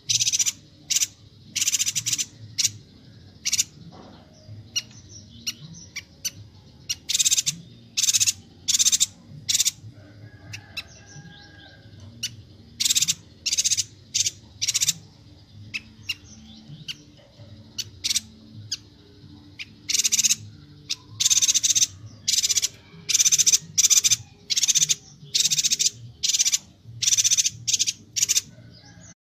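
Yuhina calling: a rapid run of short, sharp, high-pitched notes, often in quick pairs, broken by a few brief pauses.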